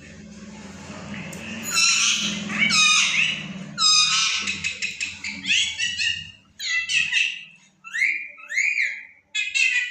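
Pet parrot chattering and calling: a quick run of sharp, pitched calls from about two seconds in, turning into a few short rising whistled notes near the end. A low steady hum sits under the first part and fades out before the end.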